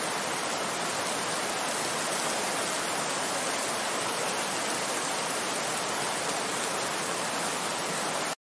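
Heavy rain falling steadily, a dense even hiss, cutting off suddenly near the end.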